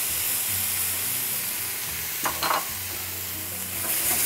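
Steady sizzling of sausage, prawns and vegetables frying in a stainless steel sauté pan as chopped tomatoes are tipped in, then stirred with a wooden spoon, a little louder near the end.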